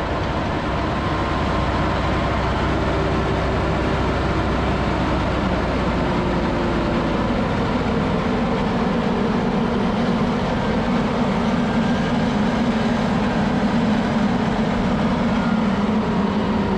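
Tractor and Grimme GL 32B potato planter working through the soil, heard close up: a steady, loud mechanical rattle and rumble from the running gear and tyres over the engine, with a low hum that grows stronger about halfway through.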